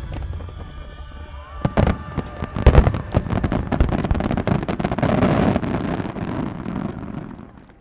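Aerial fireworks of a starmine display: a few heavy shell bursts booming about two seconds in, followed by a dense run of rapid popping and crackling that fades away near the end.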